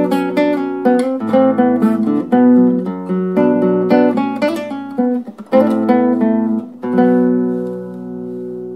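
Instrumental ringtone music: a plucked-string instrument playing a melody over chords, with a short break about five and a half seconds in, then a final chord that rings on and fades away near the end.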